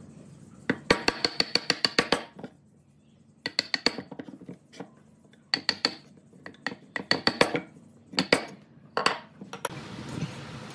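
Steel wood chisel cutting out a notch in pallet wood by hand: runs of quick, sharp clicking taps, several bursts separated by short pauses.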